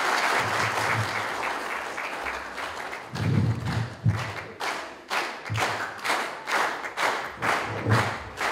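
Audience applause that fades and, about three seconds in, turns into steady rhythmic clapping in unison, about three claps a second, with low thuds among the claps.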